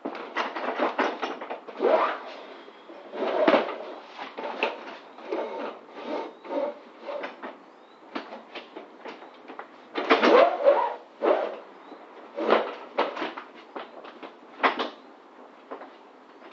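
Ratchet straps being handled to secure a load: webbing rustling and dragging, with irregular clicks, knocks and clatter of the metal buckles, loudest about ten seconds in.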